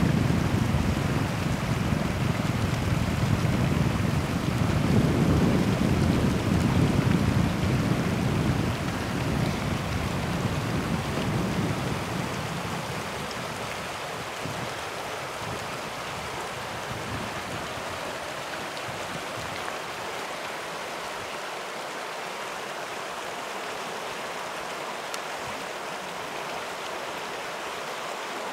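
River water rushing over a shallow riffle, a steady hiss of moving water. A heavy, uneven low rumble runs under it through the first dozen seconds, then drops away to a quieter, even rush.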